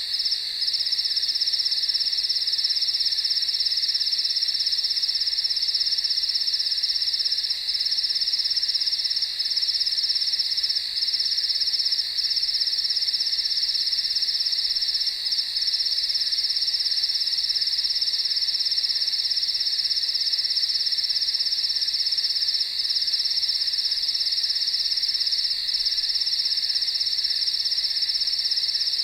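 A dense, steady chorus of crickets chirping, high-pitched and unbroken.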